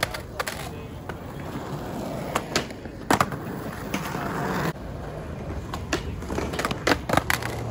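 Skateboard wheels rolling on concrete, with a sharp clack about three seconds in as the board pops onto a metal flat rail. A scrape along the rail follows for about a second and a half and cuts off suddenly, then come a few lighter clacks of board and wheels.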